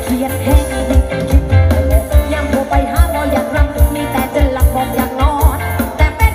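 Pop song with a sung melody played loud through OD15 subwoofer cabinets and a mid-range top cabinet, a heavy bass beat pulsing about twice a second under the vocal.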